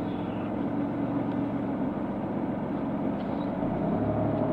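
Car engine idling, heard from inside the cabin while stopped at a traffic light, a steady low hum. Near the end the low hum swells slightly as the car begins to pull away.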